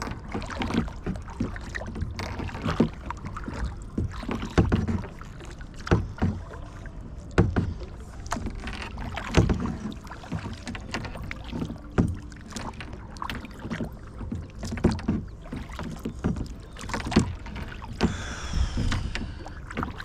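Kayak paddling: paddle strokes splashing in the lake water about once every second or so, some with a sharp knock, over a low steady rumble.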